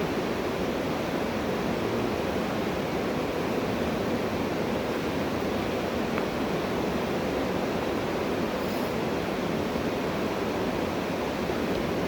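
Steady rush of flowing water, an even roar that holds at one level throughout.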